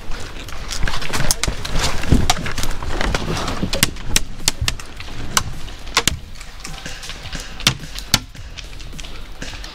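Airsoft gunfire: a string of irregular sharp clicks and cracks, some close together and some a second or so apart, from BB guns firing and BBs striking wood nearby, thinning out after about eight seconds.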